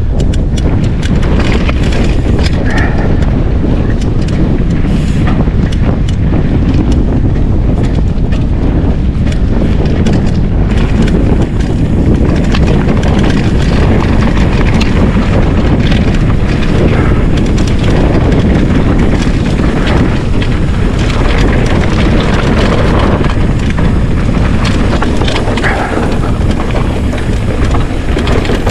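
Wind rushing over the microphone as a full-suspension mountain bike rolls fast down a rocky gravel trail, its tyres crunching over loose stones with frequent knocks and rattles from the bike.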